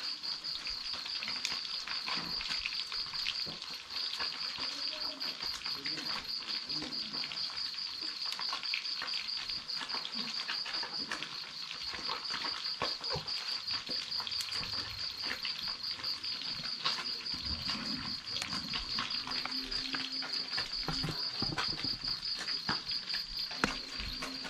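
Sea fish frying in oil in a wok over a wood fire, a steady crackling sizzle, over night insects chirping in a steady fast-pulsing trill.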